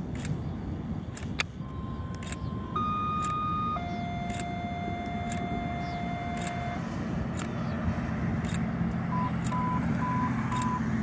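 Radio scanner sounding fire-dispatch alert tones: three steady tones of different pitches in turn, the last held about three seconds, then four short beeps near the end. Underneath, the low drone of an approaching twin-engine propeller airplane grows from about halfway.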